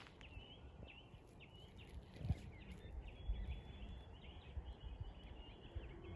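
Faint bird chirping: many short, high chirps scattered through the whole stretch, over a low outdoor rumble, with a single soft thump about two seconds in.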